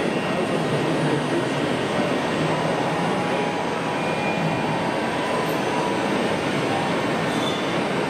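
Radio-controlled model Liebherr 742 bulldozer running, its drive and tracks giving a steady mechanical rumble with a faint whine as it crawls through sand.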